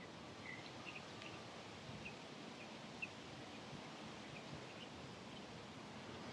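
Faint outdoor ambience with a few short, faint bird chirps scattered through it.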